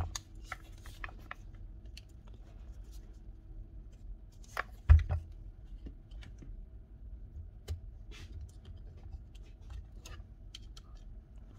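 Light clicks and scrapes of hands handling a cordless impact wrench on the bench, with one louder knock about five seconds in.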